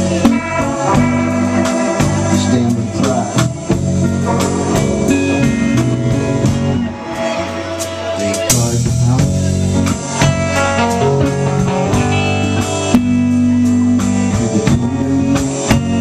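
Live rock band playing an instrumental passage: electric guitars, electric bass and a drum kit keeping a steady beat, with a cymbal crash about halfway through.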